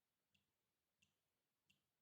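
Water dripping in a steady, even rhythm, very faint: three drops in two seconds, each a short sharp plink about two-thirds of a second after the last.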